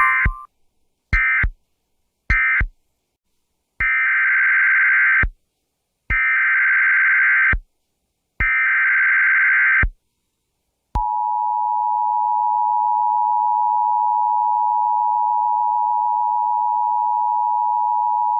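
NOAA Weather Radio alert tones. Three short digital data bursts about a second apart end the previous message. Three longer data bursts, the SAME header of a new warning, follow at about the same spacing. About 11 seconds in, the steady 1050 Hz warning alarm tone starts and holds.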